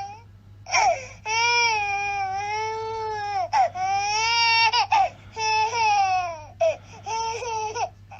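Baby crying in a run of long, pitched wails broken by short gasping breaths, the last few cries shorter and choppier.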